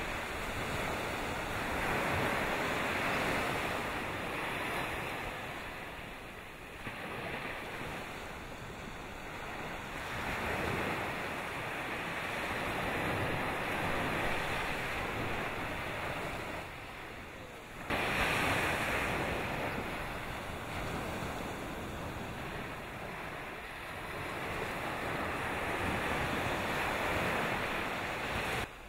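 Steady rushing noise of wind and sea, swelling and fading in slow waves, with a sudden jump in level about 18 seconds in.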